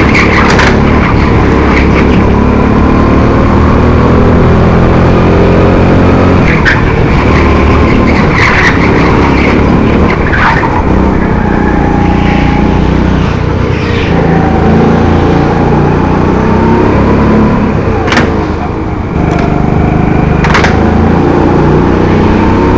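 Honda 200cc single-cylinder four-stroke kart engine heard from the driver's seat of a Rimo Evo 5 kart. Its pitch rises and falls as it accelerates out of corners and eases off into them, with short tyre screeches in the turns. It drops away briefly about three quarters of the way through, as the throttle is lifted.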